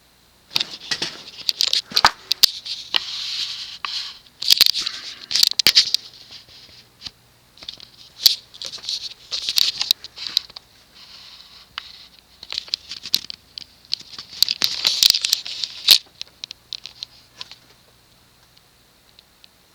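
Irregular crackling and rustling in dense surges, over a faint steady hum that runs alone before the crackling starts and after it stops near the end.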